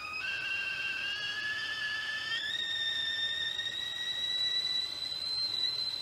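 Chefs Limited 2.75-quart stainless steel whistling tea kettle starting to whistle as its water comes to the boil. At first it sounds several tones together that climb slowly; about two and a half seconds in it jumps up to a single high, steady whistle.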